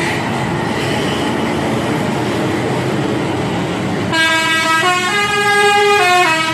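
Bus engine and road noise as the bus climbs, then about four seconds in a telolet horn, the multi-tone musical air horn of Indonesian buses, plays a stepping melody of several notes at once.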